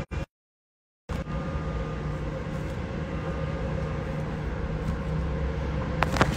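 Steady low mechanical hum and rumble of background noise. It cuts out completely for about a second just after the start, then carries on, with a few sharp clicks near the end.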